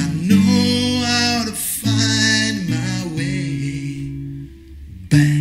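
A man singing over acoustic guitar. The music fades to a quiet held note about three seconds in. The guitar strums back in loudly just before the end.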